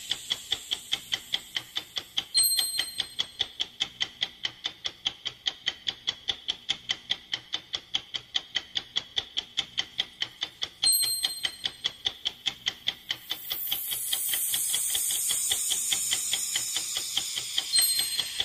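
A ticking-clock sound effect in a fast, steady rhythm, with a bright chime struck three times and a whoosh sweeping down in pitch about three-quarters of the way through.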